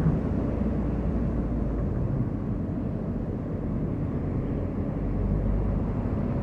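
Car being driven on a road: a steady low rumble of engine and tyres.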